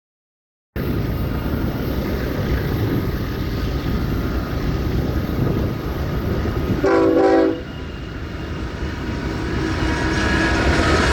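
Diesel freight locomotives rumbling steadily, with one short blast of a multi-chime locomotive air horn about seven seconds in. Near the end the rumble grows louder as the train nears.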